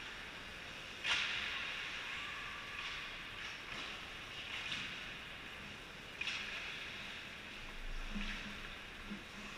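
Ice hockey skate blades scraping on rink ice in several hissing strokes, the loudest starting sharply about a second in and another around six seconds in.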